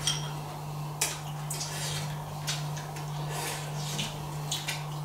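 Two people eating from rice bowls with chopsticks. Scattered short clicks and scrapes of the chopsticks against the bowls are heard over a steady low hum.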